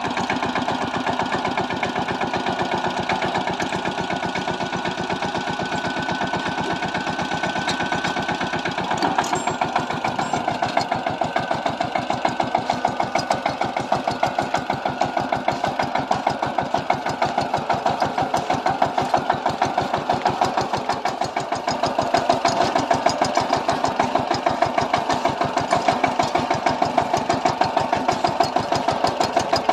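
Power tiller's single-cylinder diesel engine running steadily with a fast, even chugging beat while pulling dry land tynes for deep ploughing. The beat grows heavier about nine seconds in.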